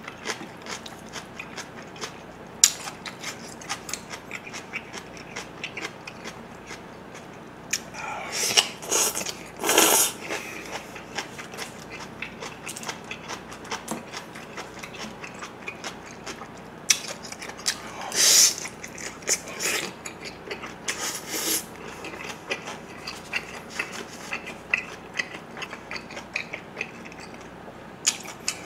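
Close-miked mukbang eating of spicy bibim noodles and pan-fried dumplings: steady wet chewing clicks, with louder, longer eating noises twice between about eight and ten seconds in and again near eighteen and twenty-one seconds.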